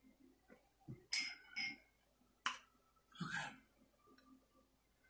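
A few brief, separate noises at a table: short scuffing sounds, a sharp click about halfway through as a drinking glass is set down on the tabletop, then another short scuff.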